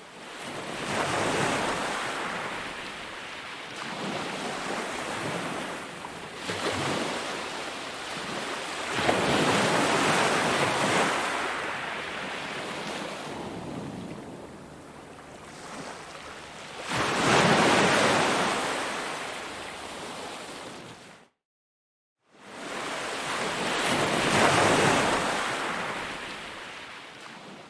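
Ocean surf: waves rushing in and washing back, rising and falling in several swells, with a brief gap of silence about three-quarters of the way through.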